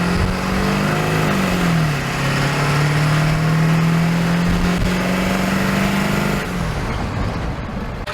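A 7.3 diesel engine revving. It is held at a raised speed, drops back to a lower speed about two seconds in, is brought up again about five seconds in, and falls back near the end.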